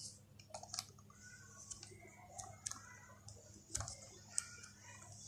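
Small plastic clicks and taps, about half a dozen scattered, as hands work the cap of a continuous ink supply system's black ink tank, over a faint steady hum.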